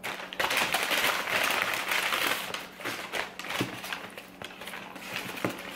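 Paper takeout bag and sandwich wrapper crinkling and rustling as they are handled. The crinkling is busiest in the first three seconds, then quieter with a few sharp crackles.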